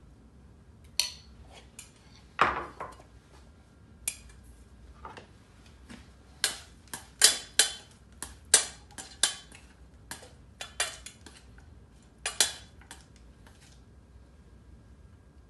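Metal utensil clinking and knocking against a stainless steel mixing bowl while salad is tossed in it: an irregular run of sharp clinks, each ringing briefly, stopping near the end.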